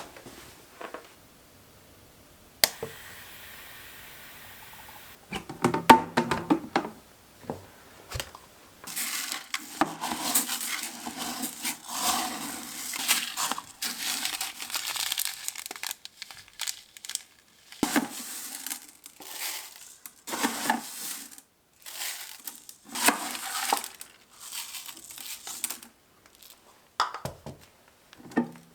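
Crinkling and rustling as things are handled, broken by several sharp clicks and knocks. A steady hiss runs for a couple of seconds near the start.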